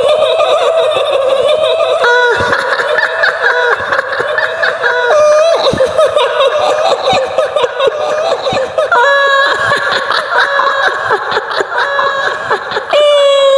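High-pitched woman's laughing, the long wavering 'hihihi' of a kuntilanak ghost sound effect. It runs without a break, its pitch stepping up and down in a few long stretches.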